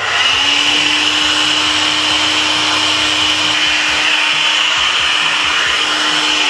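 Electric heat gun switching on and running steadily: a rush of blown air over a constant motor hum, heating the aluminium shock-absorber body so the bearing will press in more easily.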